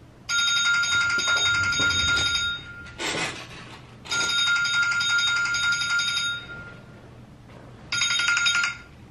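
A phone ringing with a trilling, bell-like telephone ringtone: three rings of about two seconds each with pauses between, the third cut short near the end.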